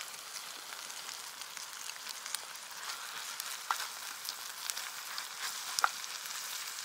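Hot pot broth in a metal pot simmering over a charcoal fire: a steady sizzle with scattered small pops and crackles.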